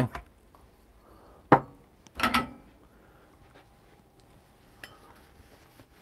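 Espresso tools being handled on a tamping station: a sharp metal knock, then a short ringing clatter of metal on metal a second later, and a faint tick near the end.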